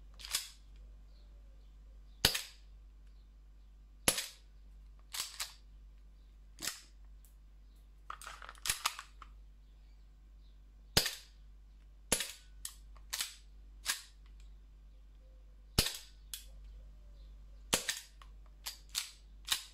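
Inokatsu Sig Sauer P226 E2 CO2 blowback airsoft pistol firing a string of about twenty single shots at irregular intervals, sharp cracks a second or two apart, some in quick pairs. The CO2 cartridge is nearly empty.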